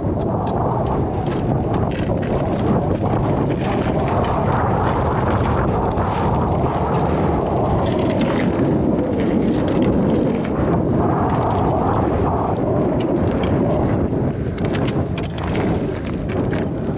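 Strong wind buffeting the microphone: a loud, steady rumbling rush that swells and eases without letting up.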